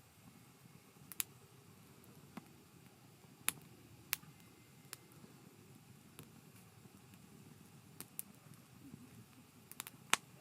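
Wood campfire crackling: irregular sharp pops over a faint, steady low rumble of the flames, with a quick cluster of pops near the end.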